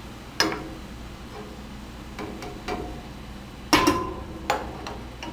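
Metal slotted spoon clinking against a glass bowl as fried plantain chips are tipped in: a few scattered sharp clinks, the loudest pair about four seconds in with a brief glassy ring. Underneath is a faint steady hiss of hot frying oil.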